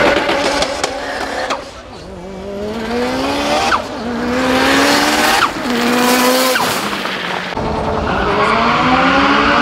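Mitsubishi Lancer Evolution accelerating hard down a drag strip: the engine note climbs, drops sharply at a quick up-shift about four seconds in and again a second and a half later, then climbs once more. Near the end the revs rise again.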